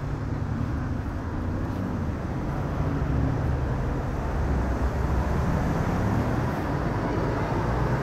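Street traffic: a steady low engine hum from vehicles, slowly getting a little louder.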